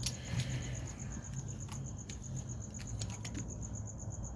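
A cricket trilling steadily in a high, rapid, even pulse, with a few faint light clicks and a low hum underneath.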